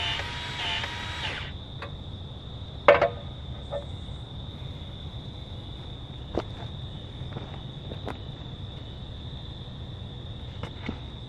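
Steady high-pitched chirring of insects over a low rumble, with scattered sharp clicks and knocks, the loudest about three seconds in. A short run of melodic tones cuts off about a second and a half in.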